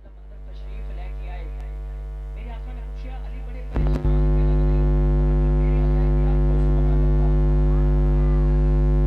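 Loud electrical mains hum in the audio chain: a steady low buzz at the mains frequency with its overtones. It swells in over the first second and jumps louder about four seconds in, drowning out faint voices beneath.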